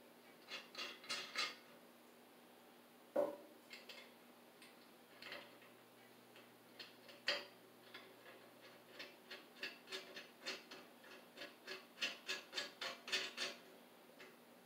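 Runs of short metallic clicks and ticks from hand tools working on a boiler's circulating pump, at about two to three a second, with one sharper knock about three seconds in.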